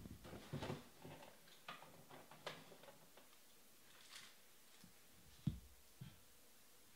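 Faint handling noises: scattered soft knocks, clicks and light rustles of objects being moved and set down, with a duller thump about five and a half seconds in.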